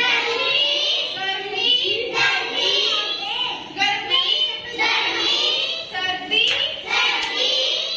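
A class of young children chanting together in unison, in short phrases about a second long with brief pauses between them. A single sharp tap about six and a half seconds in.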